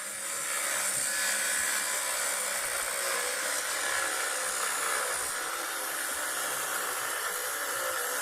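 Power grinder cutting a deep groove along a crack in an aluminium steering knuckle, preparing it for TIG welding; a steady whirring grind whose pitch wavers slightly under load.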